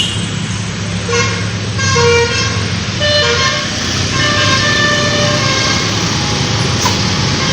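Telolet basuri bus horn, a set of air horns driven by a DAV module, playing a tune of short and held notes that step between pitches, over a steady low rumble.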